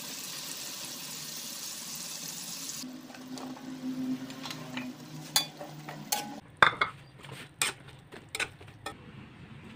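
Food sizzling and frying in a wok. About three seconds in the hiss stops, and a spatula then knocks and scrapes against the wok as vegetables in sauce are stirred, with a string of sharp clacks in the second half.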